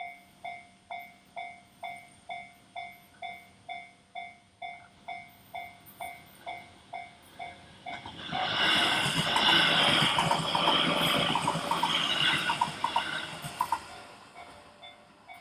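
Japanese level-crossing warning bell ringing steadily about twice a second. About eight seconds in, an electric train runs over the crossing, its wheels clattering over the rail joints and drowning the bell for about five seconds before fading away, the bell still ringing.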